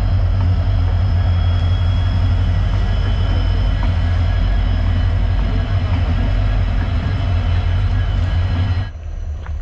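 Train running, a loud steady rumble. It cuts off suddenly near the end, leaving a quieter rumble.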